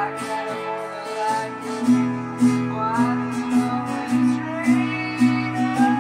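Acoustic guitar strummed in a steady rhythm, ringing chords with regular strokes several times a second.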